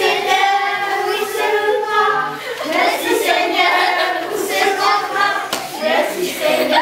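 A group of children and adults singing together, with a few hand claps.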